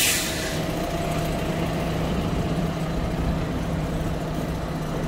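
Heavy diesel engine running steadily at idle, a low, even hum that does not rev.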